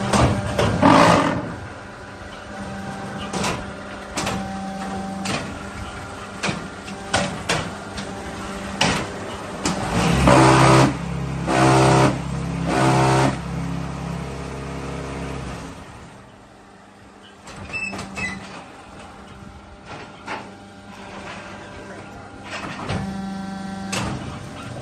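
Concrete block machine running: a steady hum with repeated clanks and knocks. About ten seconds in, a loud low buzz comes in three pulses, typical of the vibrating table compacting the concrete in the mould. A few seconds later the hum drops away and the machine quietens.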